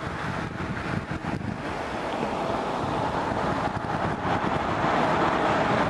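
A car approaching, its tyre and engine noise growing steadily louder, with wind buffeting the microphone.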